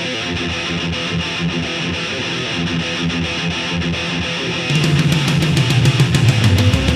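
Heavy rock music with electric guitar. About two-thirds of the way in, a driving drumbeat comes in and the music gets louder.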